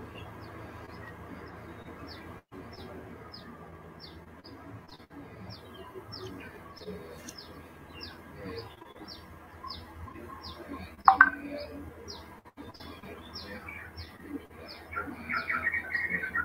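A bird chirping over and over in short, high, falling notes, about two a second. There is a sharp, louder sound about eleven seconds in, and louder, lower calls near the end.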